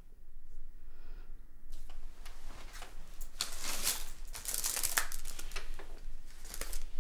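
Paper rustling and crinkling as a sheet of paper or letter is handled and passed across a table, in irregular strokes starting about two seconds in.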